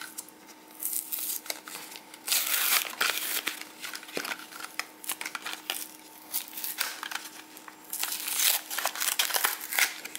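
Plastic blister pack crinkling and its cardboard backing tearing as it is pried open by hand, in several bursts with small clicks and rustles between them.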